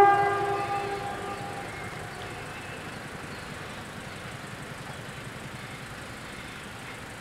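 The tail of a train's horn fades away over the first second or two. After it, the level crossing's bells keep up a steady, fast, faint ringing under a low rumble.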